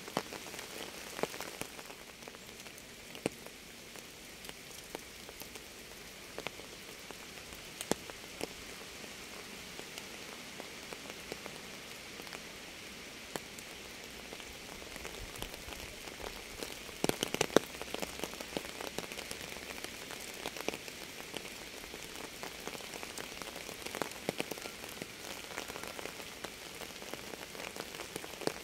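Rain falling on a surface: a steady fine hiss with separate heavier drops landing every second or so, and a quick run of louder drops a little past halfway.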